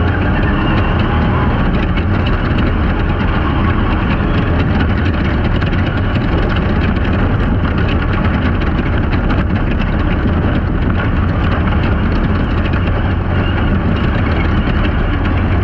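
Jimco Class 1 desert race car driving fast on a dirt course, heard from onboard: loud, steady engine mixed with wind and road noise.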